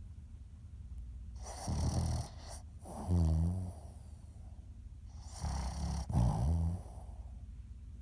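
Sleeping Boston terrier snoring: four short snores in two pairs, with a quieter stretch of breathing of about two seconds before the first and between the pairs.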